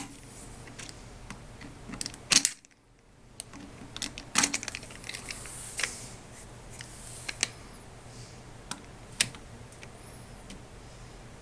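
Scattered light clicks and taps of a screwdriver working the factory screws out of a lever-action rifle's receiver, with a louder cluster of clicks about two and a half seconds in.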